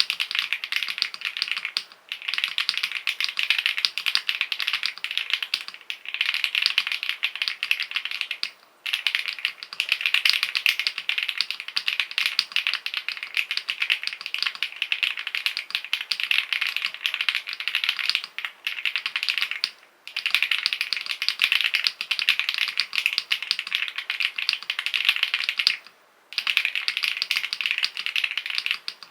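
Very fast typing on a mechanical keyboard with creamy-sounding switches: a dense, continuous stream of keystroke clicks, broken by brief pauses every few seconds.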